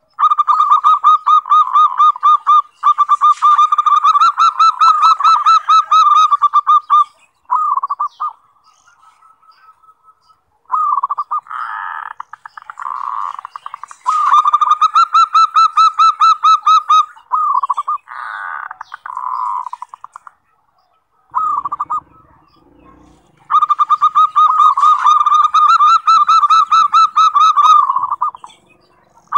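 Zebra dove (perkutut) cooing: long runs of rapid repeated notes, loud, in several bouts separated by short pauses.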